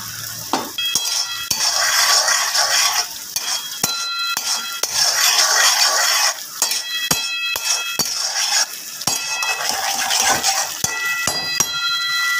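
A metal ladle stirs mutton in a metal karahi, scraping and clanking against the pan over and over, and the pan rings after each knock. Underneath runs a steady sizzle from the meat cooking in bubbling fat and liquid.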